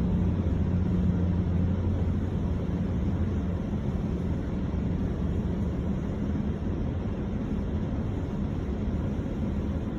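GO Transit commuter train pulling out, a steady low rumble with a deep hum that eases off slowly.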